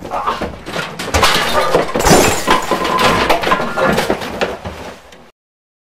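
Crashing scuffle: a dense run of smashing, banging and breaking, with glass shattering, that cuts off suddenly after about five seconds.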